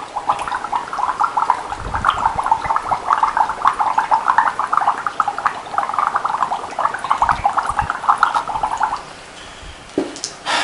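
Breath blown through a drinking straw into a glass of water: a continuous rapid bubbling, bubbling carbon dioxide into the water to acidify it. The bubbling stops about nine seconds in, and a brief clink follows near the end.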